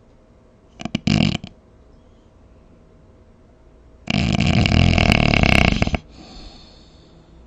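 A sleeping person snoring: a short snort about a second in, then one loud, drawn-out snore of about two seconds, trailing off into a faint breath.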